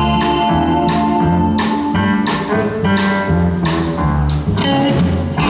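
Live swing band playing an instrumental intro with a steady beat of about two strokes a second.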